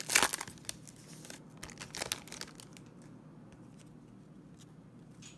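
Foil trading-card pack crinkling and tearing as it is ripped open, loudest in the first second or so, with another crinkle about two seconds in. Only faint rustles follow.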